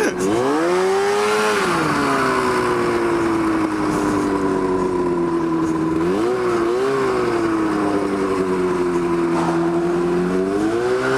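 Snowmobile two-stroke engine driving a go-kart: it revs up over the first second or so, then its pitch slowly sags for several seconds, with two quick blips about six seconds in and another rise near the end. The revs falling away instead of holding fits the complaint that the engine can't hold its RPM.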